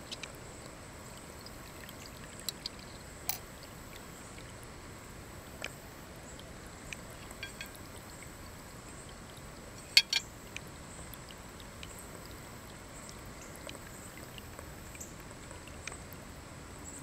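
Water pouring and trickling off the ceramic leaf spout of a pet drinking fountain into its water-filled bowl, a steady stream sound with scattered sharp clicks. A louder cluster of clicks comes about ten seconds in.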